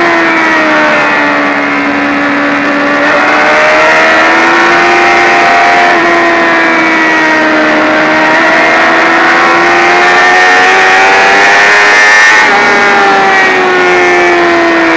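Sport motorcycle engine at track speed, heard from a camera mounted on the bike: the engine note sinks, then climbs as the throttle opens, with a sudden change in pitch about twelve seconds in before it eases down again. Wind rush runs under it.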